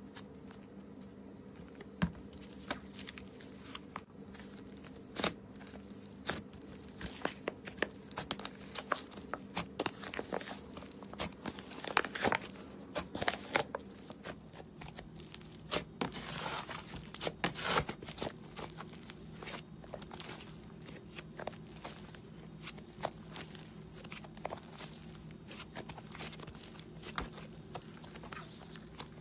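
Slime being squeezed and stretched by hand, giving irregular crackling clicks and pops that come thickest about twelve seconds in and again near the sixteen-to-eighteen-second mark, over a steady low hum.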